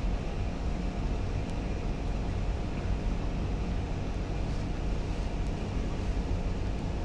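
Central air conditioning blowing from a vent: a steady, even rush with a faint constant hum.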